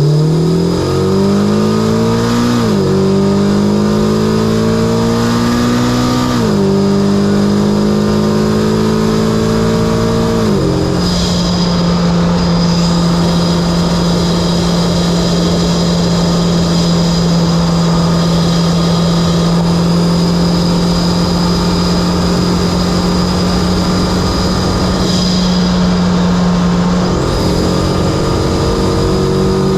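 Mitsubishi Lancer Evolution X's turbocharged 2.0-litre four-cylinder, with an Injen cold-air intake and HKS single-exit exhaust, accelerating hard through the gears. Its pitch rises and drops at three quick upshifts in the first ten seconds, then it settles into a steady cruise.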